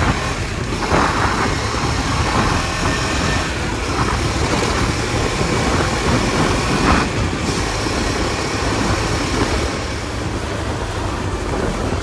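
KTM 250 Duke's single-cylinder engine running as the motorcycle rides along, heard from the rider's seat under steady wind and road noise. The bike has just been restarted and is running on the last of its fuel.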